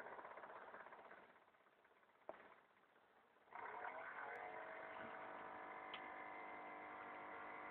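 Homemade juice-can jet engine: a hiss fades out, a single click follows, and about three and a half seconds in a whine starts suddenly. It rises briefly, then holds steady.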